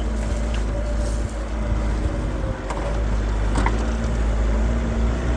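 4x4 vehicle driving on a sand track, its engine running steadily under a low rumble, with a few short knocks and rattles about two and a half and three and a half seconds in.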